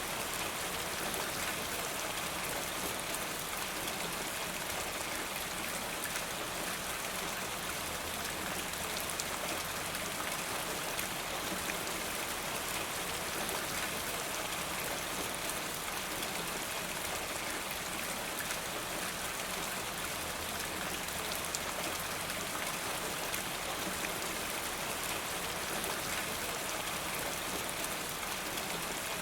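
Steady rain falling, with drops pattering on hard surfaces and water running off a rain gutter.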